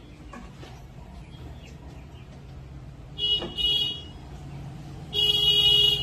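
A horn-like tone sounding in two short blasts a little after three seconds in, then one longer, louder blast near the end.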